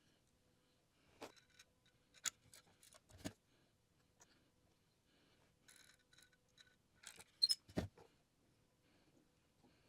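Small pieces of ledge rock clicking, tapping and scraping as they are handled and set in place, in scattered bursts with a heavier knock near the end.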